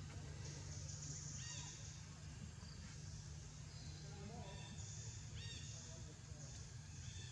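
Quiet outdoor ambience: a steady low hum and a high hiss that swells and fades, with two short arching bird calls about four seconds apart.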